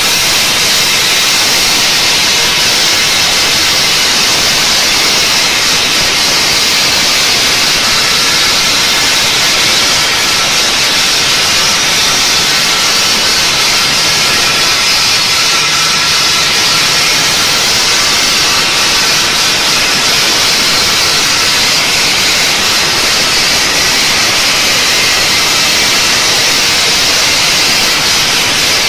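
Mushtaba bridge-type stone saw's large circular blade cutting through a row of granite blocks: a loud, steady, high hissing grind.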